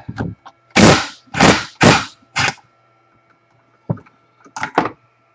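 Impact wrench hammering on a 9/16-inch socket in four short bursts, then two brief blips near the end, breaking loose a bolt on a Milwaukee portable band saw.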